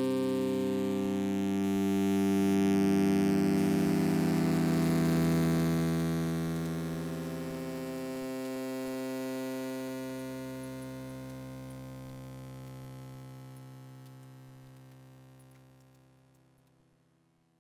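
Closing film score: a sustained drone of held chords whose low notes shift a couple of times, fading gradually to silence near the end.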